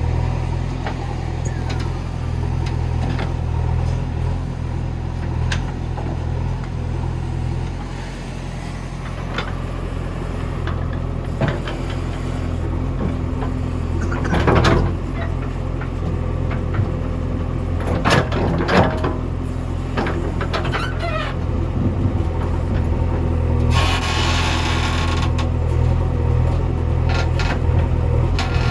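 JCB 3DX backhoe loader's diesel engine running steadily while working. A few sharp knocks come through about halfway, the loudest around 15 s and 18–19 s in, and a hissing rush follows around 24 s in.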